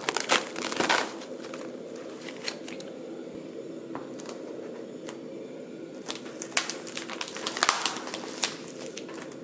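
Plastic cling wrap crinkling as it is peeled off a platter of raw beef, in a cluster of crackles at the start and again later on, over a faint steady hum.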